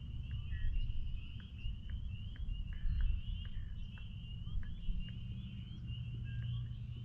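Chorus of spring peepers: many short rising peeps overlapping into a steady high-pitched chorus, with a few scattered short chirps and a low rumble underneath.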